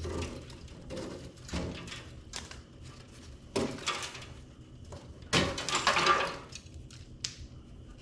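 Metal parts and tools clattering and scraping as they are handled, with a scrape about three and a half seconds in and a louder, longer rasping scrape between about five and six seconds in.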